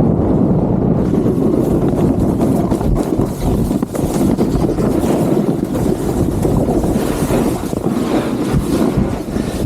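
Wind rushing over the microphone of a skier's camera on a fast downhill run, mixed with skis hissing and scraping over snow, with short uneven scrapes and knocks throughout.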